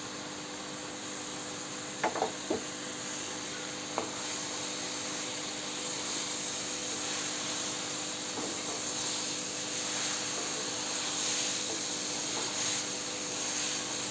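Cut brinjal and potato sizzling in hot oil in a kadai while being stirred with a wooden spatula. A few sharp knocks come about two seconds in and again at four as the pieces go into the pan. The hiss grows a little louder after several seconds.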